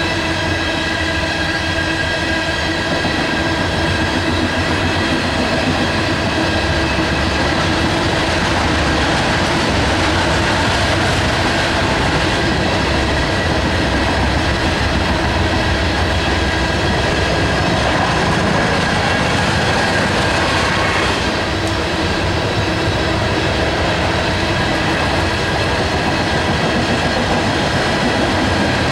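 Loaded coal hopper cars rolling past steadily, wheels rumbling and clattering on the rails, with several steady high ringing tones over the rumble.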